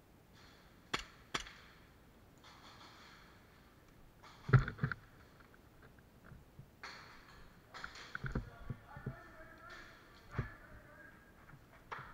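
Scattered knocks, thuds and sharp clicks of a player moving with gear, with rustling between them. Two sharp clicks come about a second in, the loudest thud about four and a half seconds in, and a quick cluster of knocks a few seconds later.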